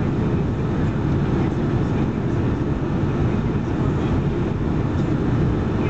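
Steady cabin noise aboard a Boeing 757-200 on descent: a low, even roar of its Pratt & Whitney PW2037 engines and the airflow over the fuselage, heard from a window seat behind the wing.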